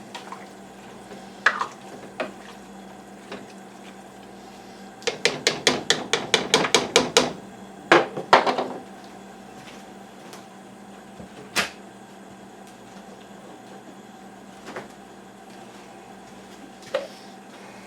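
Utensil knocking against a cooking pot: a quick run of about a dozen taps, then a louder clatter and a few single clinks, over a low steady hum.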